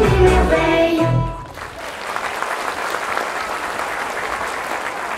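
Stage dance music ends abruptly about a second in, and an audience breaks into steady applause.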